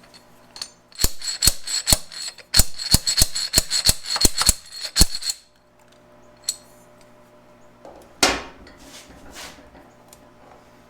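About a dozen sharp hammer blows on metal, two to three a second, each with a short metallic ring, followed by a single clunk near the end.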